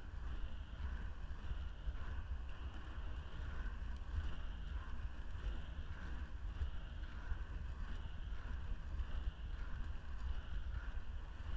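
Inline skate wheels rolling over asphalt: a steady low rumble with a higher whirr that swells and fades about once a second with the strides, plus wind on the microphone.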